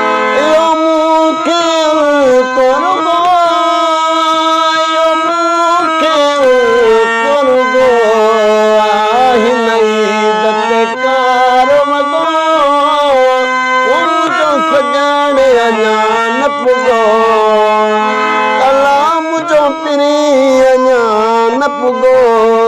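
Instrumental music of a Sindhi folk-pop song: a lead melody line that slides and bends between notes, played over a steady held drone note.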